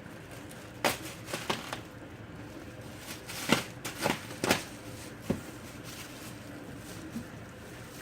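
A cardboard box of diapers being handled: a few sharp knocks and crinkles, about seven in the first five and a half seconds, the loudest about three and a half seconds in.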